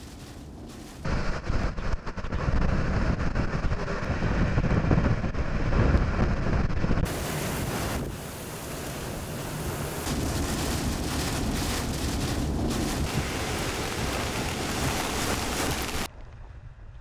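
Hurricane wind and heavy rain: a loud, steady rushing noise with strong wind buffeting on the microphone. It changes abruptly about a second in, around seven seconds in and again near the end as the shots change.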